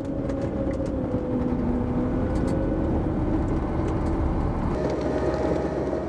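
Snow groomer (snowcat) engine running steadily under load, heard inside the cab: a dense low rumble with a droning whine that wavers slightly in pitch, its lower tone dropping away about three-quarters of the way through.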